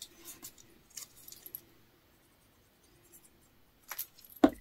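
Hands handling small paper pieces and a plastic liquid-glue bottle on a tabletop: scattered light clicks and rustles in the first second and a half, then two sharp taps near the end, the second the loudest.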